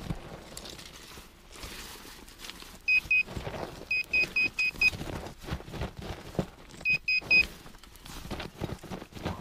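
Handheld pinpointer probe giving short, rapid high beeps in quick runs, twice about three seconds in, five times around four seconds and three times near seven seconds, as it is pushed into the loose soil: the alarm that metal lies close to its tip. Under the beeps, soil and grit are scraped and rustled by the probe and a gloved hand.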